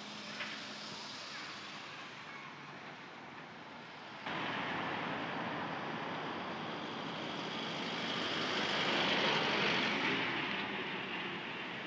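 Road traffic noise beside a street, starting suddenly about four seconds in and swelling as a small flatbed truck drives past close by, loudest about nine to ten seconds in, then fading as it moves away.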